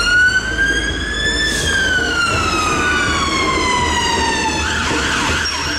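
Emergency ambulance siren sounding one slow wail that rises and then falls in pitch, switching to a rapid yelp near the end.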